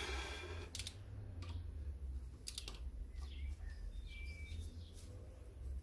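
A few scattered sharp clicks of a hand tool on the camshaft-housing bolts of a VW Polo 1.2 engine as they are tightened one by one, with short bird chirps in the middle.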